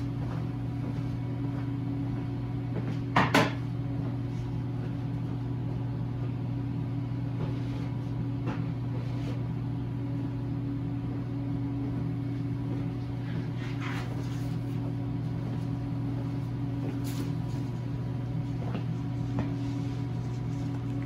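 Steady low machine hum, with a sharp double knock about three seconds in and a few faint clicks later.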